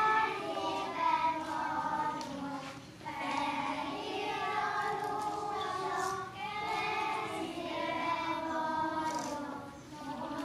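A group of young children singing together, with short pauses between phrases about three seconds in and near the end.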